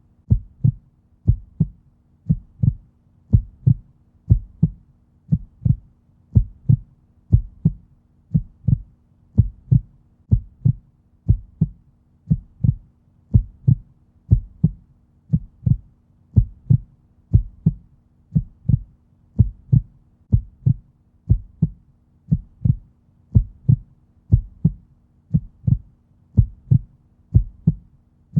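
Slow, steady heartbeat in low, muffled lub-dub pairs, about one pair every second and a third, repeating evenly like a resting heart.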